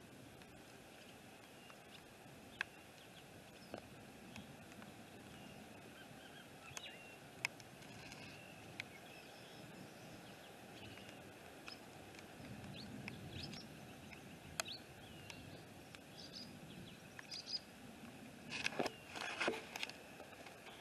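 Faint outdoor ambience with scattered short bird chirps and a few soft clicks. A low rumble swells briefly past the middle. Near the end comes a cluster of louder knocks and rustling.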